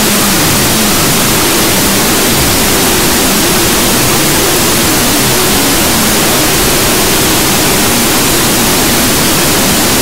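Loud, steady static-like hiss, with a faint tune showing through underneath.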